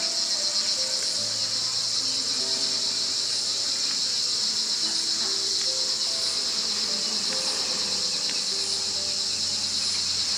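A steady, high-pitched chorus of insects shrilling without a break, with a slow, soft melody of held notes underneath.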